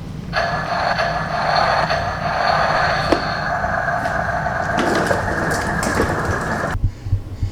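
A child's ride-on toy in motion, a steady rolling, whirring noise that starts just after the beginning and cuts off suddenly near the end.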